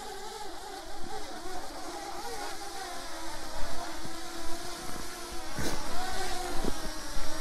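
Parrot Anafi quadcopter's propellers buzzing as it hovers and descends to land, the pitch wavering and the sound growing louder toward the end. A short knock about five and a half seconds in.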